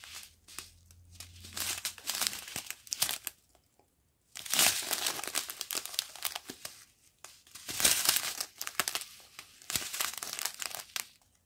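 Small clear plastic bags of diamond painting drills crinkling as they are handled and turned over by hand, in irregular bursts with a short pause about four seconds in.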